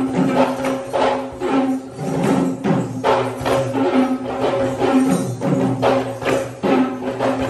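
Kandyan dance music: drums struck in a steady rhythm with jingling metal percussion, over a held low tone.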